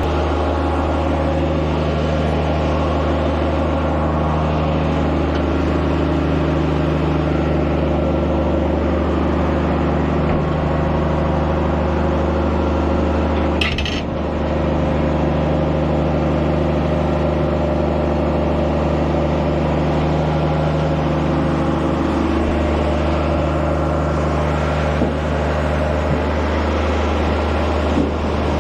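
Sweet corn picker's engine and machinery running steadily with a deep, even drone, and a single brief knock about fourteen seconds in.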